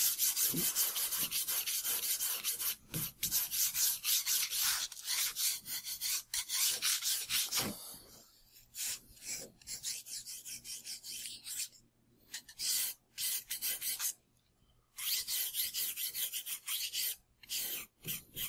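Sanding block with sandpaper rubbing along a small model-aircraft wing in quick back-and-forth strokes. The strokes come in runs, loudest in the first half, with a few short pauses later on.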